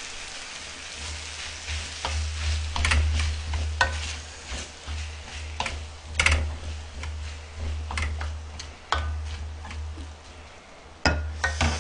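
Wooden spatula stirring and scraping through sizzling chicken bulgogi and vegetables in a shallow pan over a tabletop burner. Irregular scrapes against the pan come over a steady frying hiss, with a low hum underneath.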